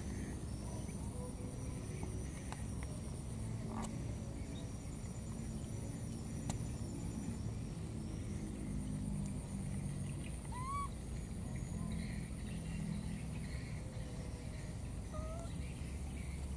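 Outdoor woodland ambience: a steady high-pitched buzz over a low rumble, with a few short rising chirps about two-thirds of the way in and near the end.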